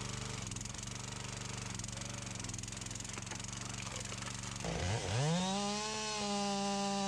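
A hydraulic log splitter's small engine runs steadily. About two-thirds of the way in, its note dips and then climbs to a higher, steady pitch, slightly louder, as the engine speeds up.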